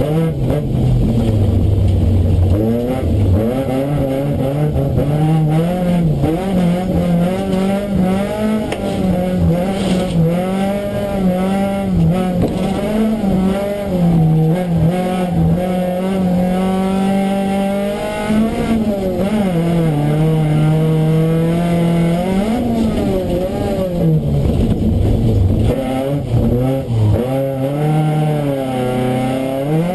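A bilcross race car's engine heard from inside the car, driven hard: the revs climb and fall again and again, dropping steeply several times in the second half.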